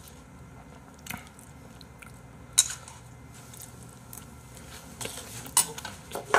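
Eating at the table: chopsticks click against a bowl a few times, the sharpest click about two and a half seconds in, with quiet chewing in between.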